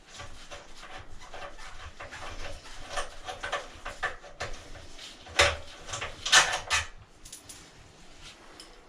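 Hand tools working a loosened 12 mm exhaust mount bolt out of a motorcycle: a run of irregular clicks and metal clanks, with two louder knocks about five and a half and six and a half seconds in.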